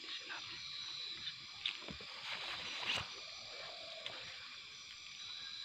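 Footsteps through dry leaf litter and undergrowth brushing against the body while walking, with a few sharper cracks, the loudest about three seconds in, over a steady high-pitched drone.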